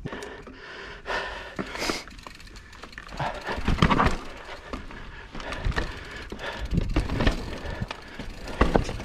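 Mountain bike riding over a rough, rocky trail: irregular knocks and rattles as the tyres and frame hit rocks and roots.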